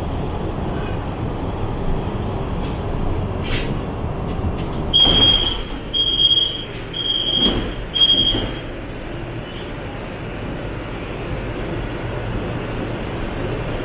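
CSR Zhuzhou 'AMY' light-rail train at a station stop, its passenger doors sliding open with four short high warning beeps about a second apart. The beeps sit over the car's steady rumble, which drops lower once the doors are open.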